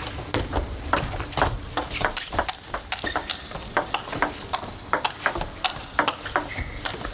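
Table tennis ball being hit back and forth in a fast rally: a quick run of sharp clicks as the celluloid-type ball strikes the rubber-faced paddles and bounces on the table, several a second.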